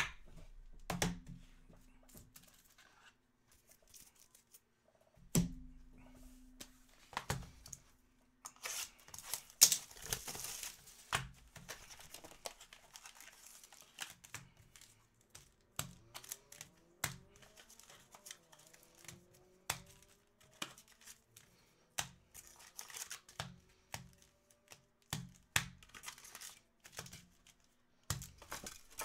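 A trading-card hobby box being opened and its foil card packs handled: a stretch of tearing and crinkling about ten seconds in, then many light taps, clicks and rustles as the packs are pulled out and stacked on a table.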